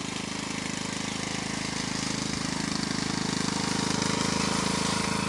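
Riding lawn mower's small engine running steadily, getting gradually louder as the mower approaches.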